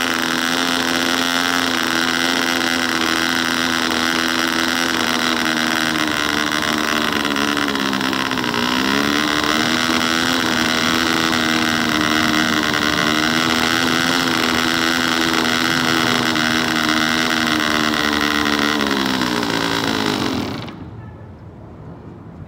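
DC Spitfire model aircraft diesel engine running steadily on the plane. Its speed sags and recovers about eight seconds in, then it slows and stops near the end. The engine is still being run in, and the owner says it needs some more running in.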